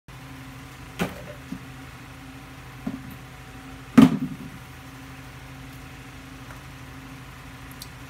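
A steady low electrical hum, with a few sharp knocks on a hard surface: one about a second in, two smaller ones after it, and the loudest about four seconds in.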